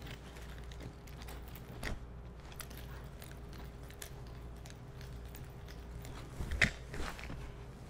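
Quiet room hum with a few faint clicks and knocks from a nunchaku being handled and swung, the loudest a short clatter about six and a half seconds in.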